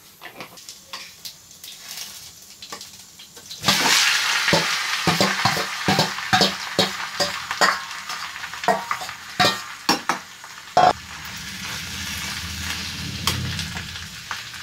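Mashed potatoes frying with cumin in hot oil in a pan: sizzling that turns much louder about four seconds in, with a metal slotted spoon scraping and clicking against the pan as they are stirred. A sharp knock comes a little before eleven seconds, after which the sizzle is quieter.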